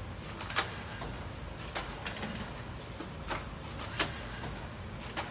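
Container filling and lidding machine running: sharp clacks from its moving parts, roughly one a second, over a steady low hum. The loudest clacks come about half a second and four seconds in.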